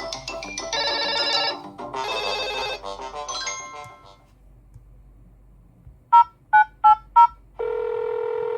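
Smartphone ringtone melody playing, then dying away; after a short pause come four quick electronic beeps, about three a second, and then one steady beep tone lasting about a second.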